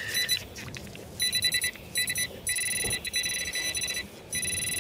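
Handheld metal-detecting pinpointer sounding off: a short tone right after it is switched on, then from about a second in a rapidly pulsing high buzz in three stretches, its alert that there is more metal in the hole.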